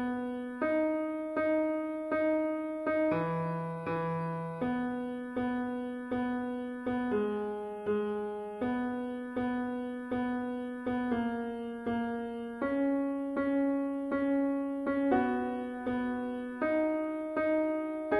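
Solo piano music: chords struck about twice a second, each fading before the next, with the chord changing every couple of seconds.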